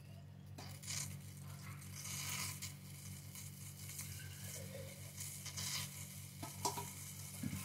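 Steel pan of milk heating on a gas burner: faint irregular hissing and sizzling over a steady low hum, with a few small clicks near the end.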